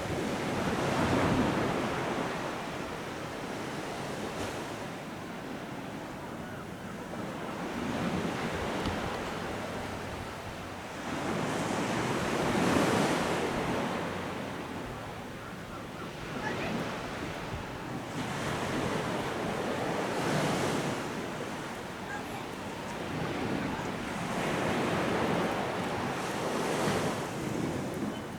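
Sea waves breaking on a beach, in about five rolling surges a few seconds apart, with wind on the microphone.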